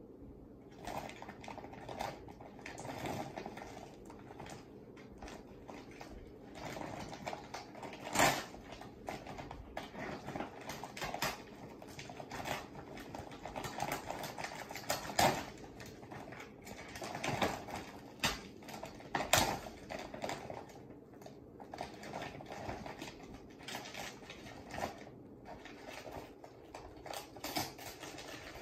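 Irregular light clicking and tapping, with a few sharper knocks about eight, fifteen and nineteen seconds in.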